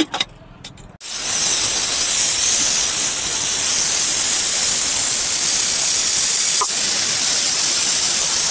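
Aluminium pressure cooker venting steam through its whistle weight: a loud, steady hiss that starts suddenly about a second in. It is the sign that the cooker has come up to full pressure while cooking dal and vegetables.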